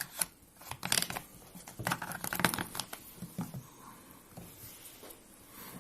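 Rustling and irregular clicks from Zippo lighters and their packaging being handled, set down and picked up.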